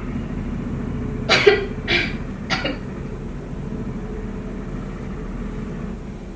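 A woman coughs three times in quick succession, staged as part of a fake coughing fit.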